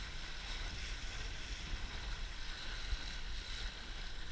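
Steady rush of wind and water spray on a Laser dinghy sailing hard in a 15–20 knot wind, with low wind buffeting on the camera.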